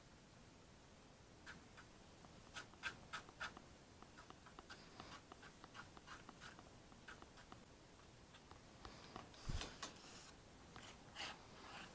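Faint scraping and tapping of a putty knife working filler paste on a piece of cardboard, a run of short irregular strokes, with a dull thump about three-quarters of the way in.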